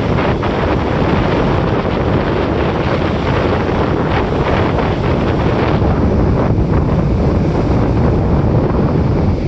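Atlantic Ocean surf washing onto a beach, heard as a steady rush of breaking waves, with heavy wind buffeting the microphone.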